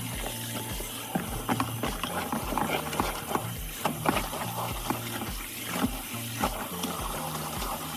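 Background music with a steady bass beat about twice a second, over irregular short wet scraping and splashing sounds.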